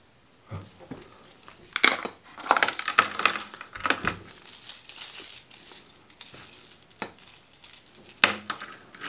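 Treble hooks and split rings of small hard-plastic crankbaits clinking and rattling against each other and the plastic tackle box as the lures are handled and untangled, starting about half a second in.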